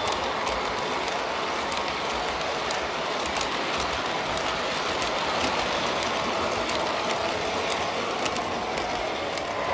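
O gauge model Amtrak passenger cars rolling past on the track: a steady rolling rumble and hiss, with faint clicks scattered through it.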